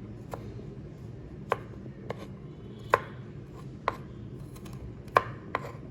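Knife cutting on a cutting board: about seven sharp, irregularly spaced knocks of the blade against the board, over a low steady hum.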